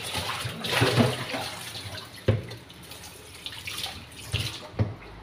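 Kitchen tap running into a plastic bowl in a sink, splashing as the bowl is rinsed, loudest about a second in. A sharp knock comes about two seconds in and two more near the end as things bump against the sink.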